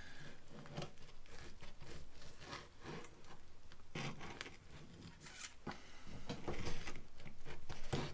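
Serrated bread knife sawing back and forth through a rack of smoked beef short ribs with a sticky glazed crust, in a run of irregular rasping strokes.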